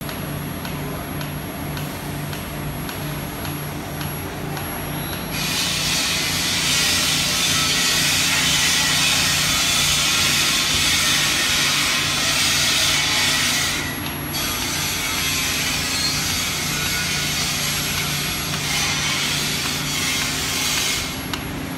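Sewage treatment plant machinery in operation: electric pump motors running with a steady hum. From about five seconds in, a loud steady hiss joins the hum; it drops out briefly about two-thirds of the way through, then continues.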